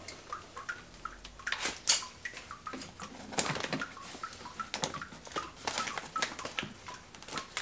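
Electrical cords and plastic plugs being handled and connected: an irregular string of small clicks, knocks and rustles.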